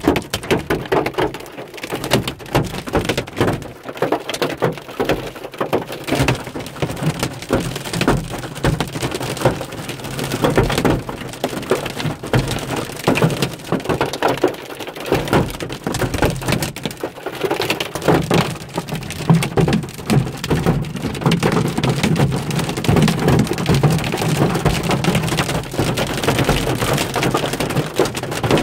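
Hailstones pelting a car's roof and windshield, heard from inside the cabin: a dense, irregular clatter of hits that turns into a steadier, more continuous din about two thirds of the way through. The hail is heavy enough to crack the windshield.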